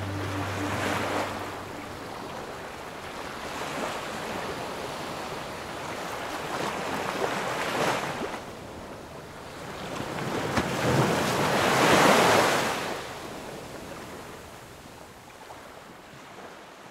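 Sea water washing and splashing around a camera held at the surface of the open sea, with wind on the microphone. It swells in surges about a second in, around eight seconds and most strongly around twelve seconds, then fades out at the end.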